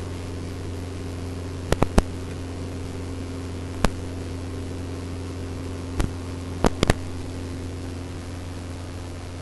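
Jabiru light aircraft's engine droning steadily in flight, heard as an even hum and hiss through the cockpit intercom. Several short sharp clicks sound at intervals.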